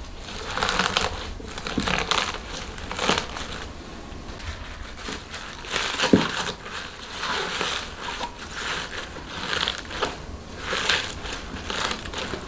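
Gloved hands pressing bundled green onions and mustard greens down into an earthenware crock: irregular rustling, crinkling and crunching of the leafy vegetables and disposable gloves, with one sharp knock about six seconds in.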